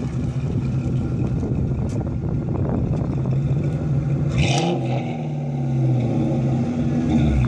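2002 Mustang GT's 4.6-litre V8 exhaust, with a BBK X-pipe and Flowmaster 10 mufflers, running raspy and loud as the car pulls away. The engine note climbs and falls about halfway through, with a brief hiss at the same moment.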